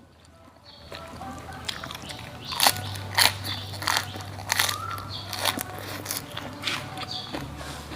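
Close-up chewing and biting of crunchy food, with a string of sharp crunches every half second to a second.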